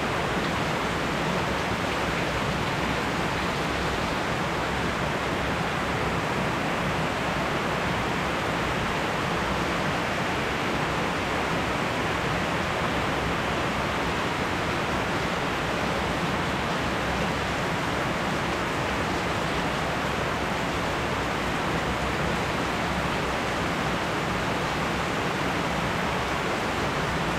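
Steady rain from a spring thunderstorm, an even hiss with no thunder and no change in strength.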